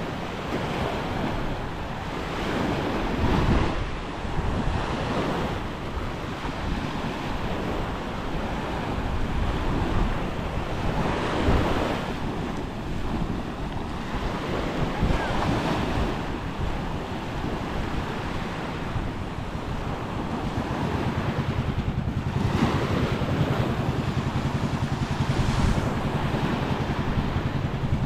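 Small waves breaking and washing up a sand beach in surges every few seconds, with wind buffeting the microphone. About three quarters of the way through, a steady low engine hum joins in and grows a little louder.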